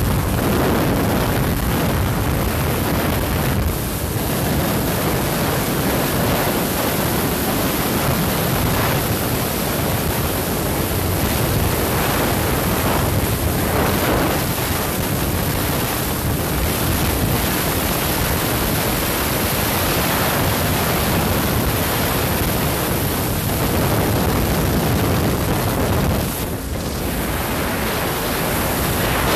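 Wind rushing over the microphone of a motorcycle at highway speed, a steady loud roar with engine and road noise underneath. Near the end it briefly eases.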